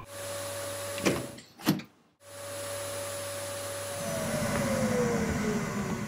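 Robot vacuum running with a steady motor hum. About a second in come two sharp sounds and a brief break, then the hum returns, growing louder, with a falling whine near the end.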